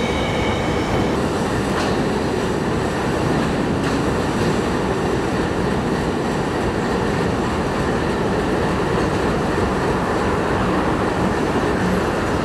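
Freight train's cars rolling past on the track: a steady rumble of steel wheels on rail, with a faint wheel squeal that fades about a second in.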